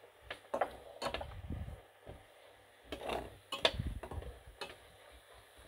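Metal slotted spatula scraping and clinking against a stainless steel frying pan while spices are stirred into a thick onion mixture: a handful of scattered clicks and scrapes with soft low knocks.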